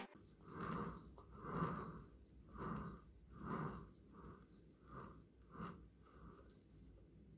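Faint, soft swishing strokes, about one a second, of whipped-cream icing being smoothed over the sides of a cake on a turntable. They grow weaker in the second half.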